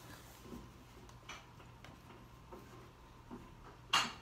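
Scattered light clicks and taps from flat-pack bookshelf parts and hardware being handled and fitted, with one sharp click near the end.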